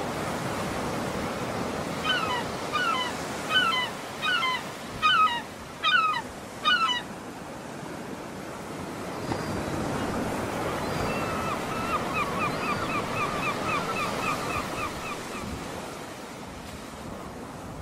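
Steady wash of waves with a bird calling over it: a run of about seven loud, separate calls, then a few seconds later a quicker, quieter series of short notes, about five a second.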